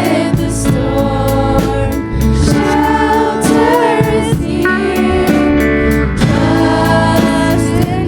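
Choir singing a Christian worship song with instrumental backing and a steady drum beat.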